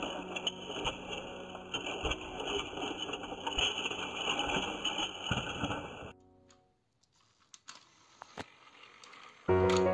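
Battery-powered plastic toy train motors whirring, with rapid gear rattle and clicking. The sound cuts off abruptly about six seconds in, leaving near quiet with a few faint clicks. Piano music starts just before the end.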